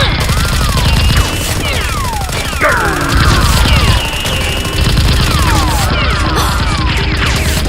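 Rapid gunfire sound effects with repeated falling and arcing whistle tones, like laser 'pew' shots, over a dense, steady low rumble.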